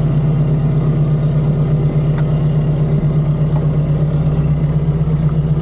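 Toyota Land Cruiser off-road race car's engine idling steadily, heard from inside the cabin.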